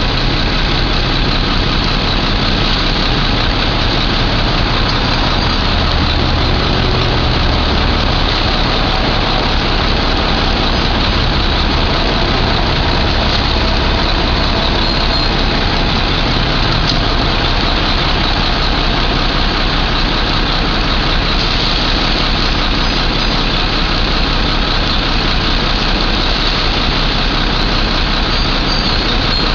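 Heavy engine idling steadily under a constant loud rushing noise.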